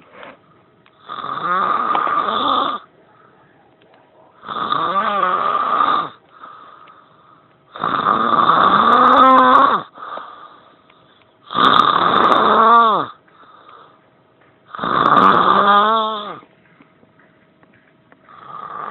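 A person snoring loudly in deep, rasping snores of about a second and a half, one roughly every three and a half seconds: five loud ones and a weaker one near the end. The sleeper is said to be drunk or nearly so.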